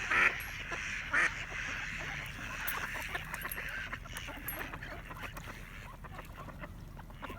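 Ducks quacking: two loud quacks, one at the start and one about a second in, over a softer, continuous chatter of many birds' calls that fades out over the next few seconds.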